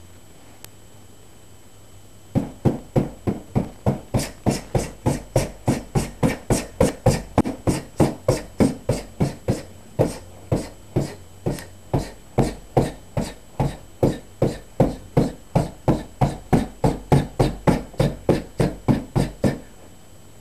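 Finger jabs striking a black hanging heavy bag: a fast, steady run of sharp slaps, about three a second, starting a couple of seconds in and stopping shortly before the end.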